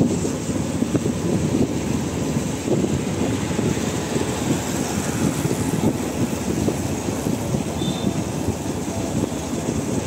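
Motorcycle engine running steadily at low road speed, heard from the rider's seat, a dense low rumble with road and air noise over it.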